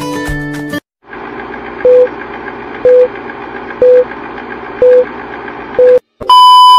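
Film-leader countdown sound effect: a steady whirring noise with a short beep about once a second, five times, then after a brief gap a long, louder, higher beep near the end. It opens with the last moment of guitar intro music, which cuts off about a second in.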